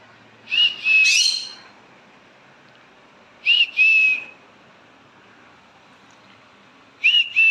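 Green-cheeked conure giving a whistled contact call three times, each a quick pair of high notes.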